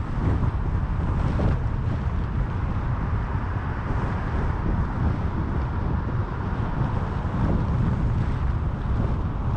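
A car driving: a steady low rumble of road and wind noise.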